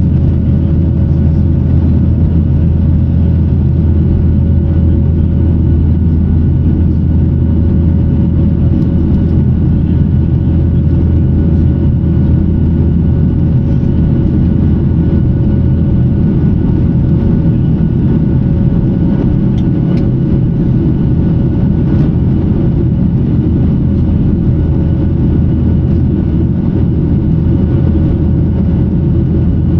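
Boeing 737-900ER's CFM56-7B jet engines running steadily: a loud, constant low drone with a few steady hum tones over it.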